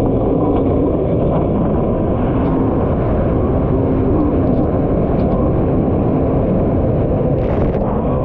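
Kawasaki SX-R 1500 stand-up jet ski's four-cylinder four-stroke engine running hard at a steady pitch under way, mixed with water and wind noise. A short hiss comes near the end.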